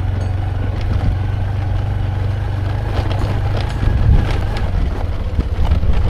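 Motorcycle engine running with a steady low hum while riding over a rough, unpaved dirt track, with scattered knocks and rattles from the bumps, louder about four seconds in.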